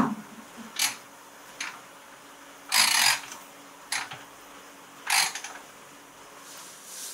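Metal clanks and rattles from a perforated hexagonal barrel of bolts and its frame as the barrel is lifted out of a tank of liquid. There are about half a dozen separate knocks, the longest and loudest a rattle about three seconds in.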